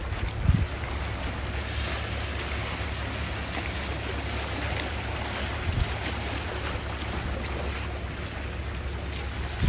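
Sea waves washing continuously, with wind buffeting the microphone as a steady low rumble and a few brief thumps.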